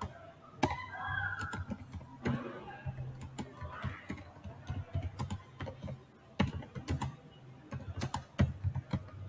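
Typing on a computer keyboard: irregular runs of keystrokes with short pauses between words.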